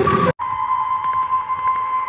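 Emergency alert attention tone: a steady electronic alarm tone near 1 kHz. It starts about a third of a second in, right after a noisy passage cuts off.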